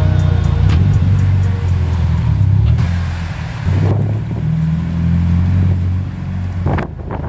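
Mitsubishi Lancer Evolution's turbocharged four-cylinder engine running at low revs with a deep exhaust rumble as the car rolls away slowly, the pitch shifting slightly. A couple of short sharp sounds come near the end.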